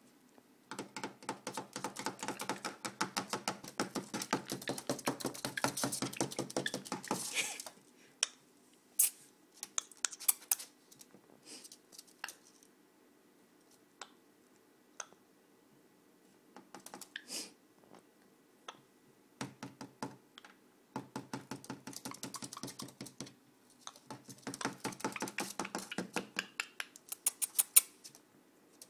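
Quaker parrot (monk parakeet) making fast runs of clicks, a long run of several seconds at first, then scattered single clicks, then more runs in the second half.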